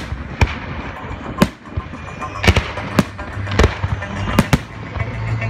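Aerial firework shells bursting: about nine sharp bangs in irregular succession, some in quick pairs, over background music.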